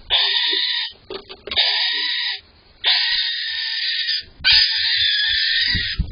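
Barn owl giving four long, harsh, hissing screeches in quick succession, each about a second long with brief pauses between.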